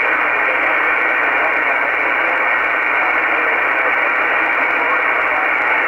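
Steady hiss of shortwave band noise from an Icom IC-R8500 communications receiver in upper-sideband mode on the 20-metre amateur band. The top end is cut off sharply by the receiver's narrow sideband filter.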